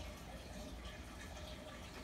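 Faint, steady background noise with a low hum underneath: room tone.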